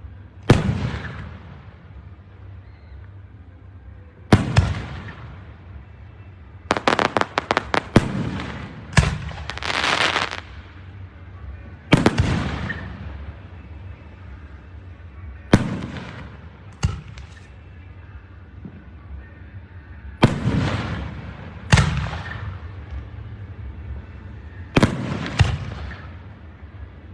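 Aerial fireworks shells bursting in a public display: loud booms every few seconds, each trailing off in a fading echo. About seven seconds in comes a quick string of reports, followed by a longer crackle.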